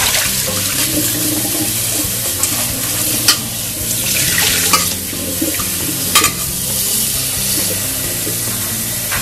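Tap water running into and splashing off a stainless-steel pot as dried Kashmiri chillies are rinsed and the water is tipped out into the sink, with a few sharp clicks of the pot being handled.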